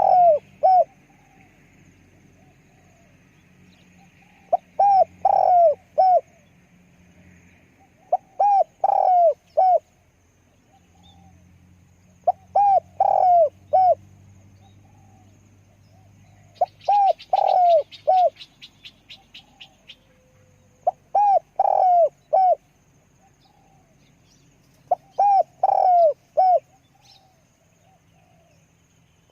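Spotted dove cooing: the same short multi-note coo phrase repeated about every four seconds, seven times. A brief rapid ticking sounds about two-thirds of the way through.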